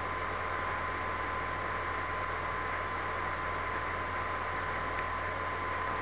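Steady background hiss from an open microphone, with a thin steady high whine and a low electrical hum underneath.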